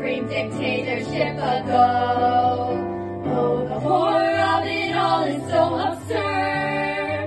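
A stage musical number: a small group of voices singing together over instrumental accompaniment, with a bass line stepping from note to note.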